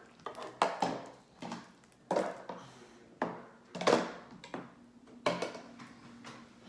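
Plastic slime containers being gathered up and clacking against each other and the table, about ten sharp knocks spread unevenly.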